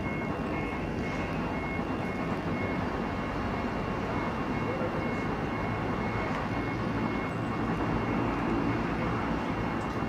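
Steady low background rumble with a faint high-pitched tone pulsing on and off throughout.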